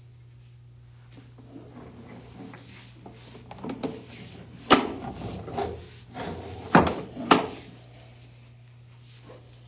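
A sewer inspection camera's push cable being pulled back out of the drain line, rubbing and clattering, with three sharp knocks in the middle, the last two about half a second apart. A steady low hum runs underneath.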